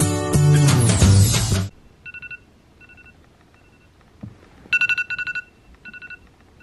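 Intro music that cuts off about a second and a half in. Then an iPhone alarm goes off: short groups of two-tone electronic beeps, quiet at first, with a loud rapid cluster a little over halfway, then quieter again.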